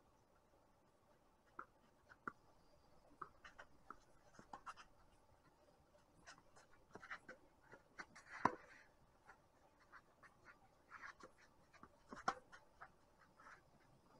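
Tennis rally: sharp pops of racquet strikes on the ball and ball bounces, spaced irregularly, the loudest a close forehand hit about eight and a half seconds in, with fainter ticks from the far end of the court between.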